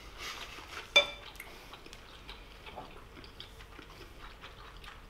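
Metal forks clinking and scraping against ceramic pasta bowls as people eat, with one sharp ringing clink about a second in and faint light taps after it.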